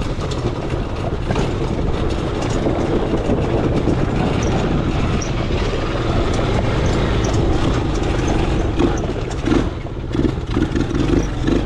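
Four-wheeler (ATV) engine running steadily as it rides, with a few sharp knocks along the way and pulsing surges near the end.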